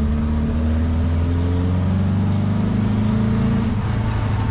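Air-cooled VW Beetle flat-four engine pulling the car along, freshly tuned up with a Solex 30/31 carburettor. The engine note climbs steadily for a couple of seconds, then drops back near the end.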